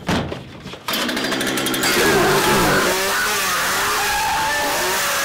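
Chainsaw starting up suddenly about a second in, then running loud and steady at high revs, its pitch wavering.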